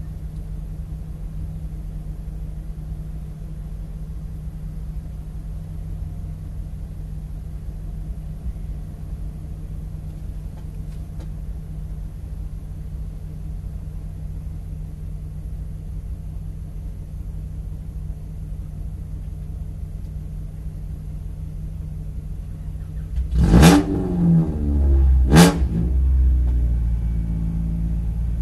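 Stock 2019 Mazda Miata MX-5's four-cylinder engine idling with a steady low hum. Near the end, two loud revs rise sharply in pitch about two seconds apart, followed by a louder, steady engine sound as the cars pull away.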